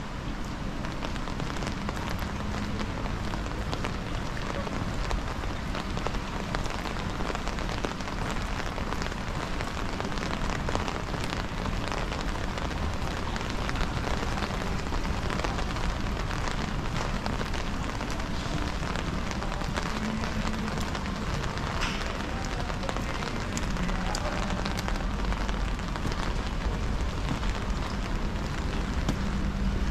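Steady rain falling on city surfaces: an even hiss scattered with many small drop ticks, with a low rumble underneath that grows stronger near the end.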